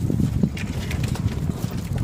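Wind rumbling on the microphone, with irregular light clicks and taps from a J24 sailboat's loose, luffing mainsail and its rigging.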